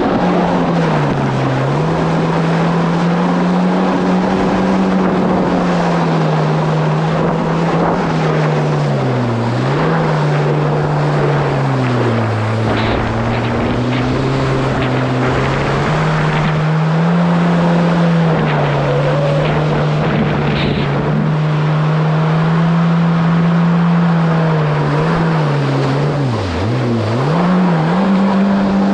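Kawasaki SX-R 1500 stand-up jet ski's four-stroke four-cylinder engine running under way. Its pitch holds steady, then drops and climbs back several times as the throttle is eased off and reopened, most sharply near the end. Water rushes and sprays along the hull underneath.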